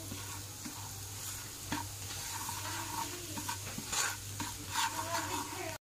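Ground spices sizzling in hot mustard oil in a nonstick frying pan, stirred with a wooden spatula that scrapes and taps against the pan now and then.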